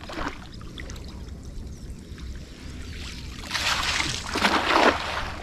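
Water splashing and pouring beside a canoe in two noisy swells about three and a half to five seconds in, over a low steady rumble.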